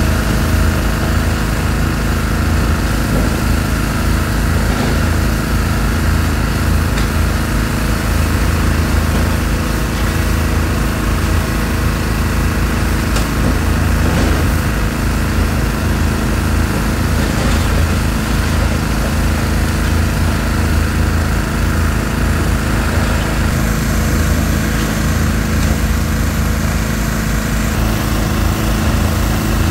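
The diesel engine of a high-reach demolition excavator running steadily, a loud low drone at an even pitch, with a few faint knocks in the middle.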